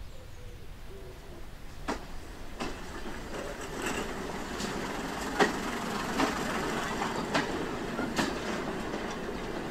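Diesel multiple unit train running into a station on jointed track, its wheels clicking over the rail joints as it draws nearer. The rumble grows fuller about four seconds in.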